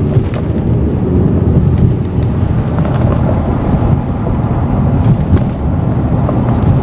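Steady low road and tyre rumble of a moving car, heard inside the cabin.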